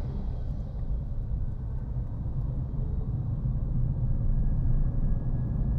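Steady low road and tyre rumble heard inside the cabin of a moving Toyota Yaris GR Sport, growing a little louder after about four seconds.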